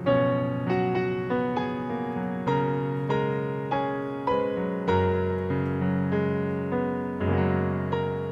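Solo piano playing a slow, gentle melody over chords, each note struck and left to ring.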